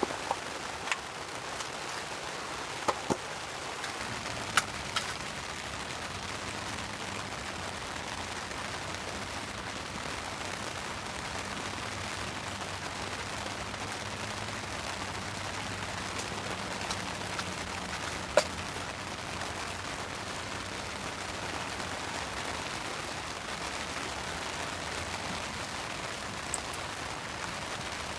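Steady rain falling, with a wood campfire giving a handful of sharp pops and cracks, the loudest about two-thirds of the way through.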